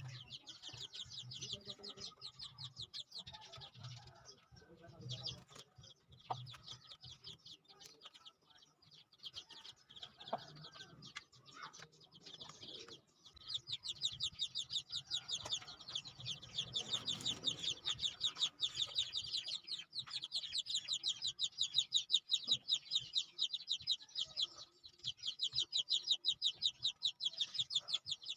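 Chickens cheeping and clucking: a dense run of rapid, high chirps that gets louder about halfway through, with softer low clucks early on.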